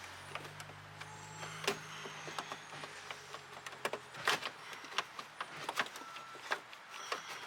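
Scattered light clicks and knocks of hand tools and plastic and metal parts being worked inside a car door, as the door lock actuator is freed. A faint low hum runs under the first few seconds.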